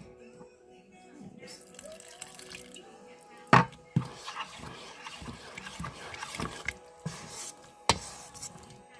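A spoon stirring soggy, broth-soaked bread stuffing in a stainless steel mixing bowl: wet squelching and scraping, with a sharp clink of the spoon against the bowl about three and a half seconds in and a lighter one near the end.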